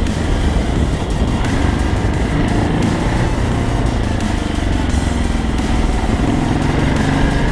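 Motorcycle engine running on the move, heard from a camera mounted on the bike, with the engine pitch rising and falling in the second half and heavy wind noise on the microphone.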